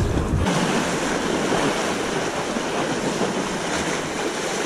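Sea waves washing against a rocky shore, with wind rumbling on the microphone. The sound changes abruptly about half a second in, where the low wind rumble drops away and the wash of the water carries on steadily.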